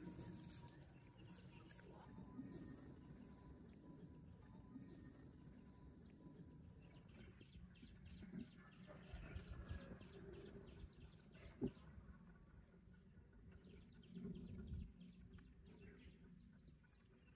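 Near silence: faint outdoor ambience with a thin steady high hum for about the first seven seconds, a few soft knocks and low thumps, and a single sharp click about two-thirds of the way through.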